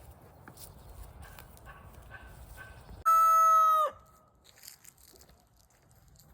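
A rooster crows once, loud and held at an even pitch for about a second, dropping off at the end, about halfway through. A few faint short chicken calls come before it.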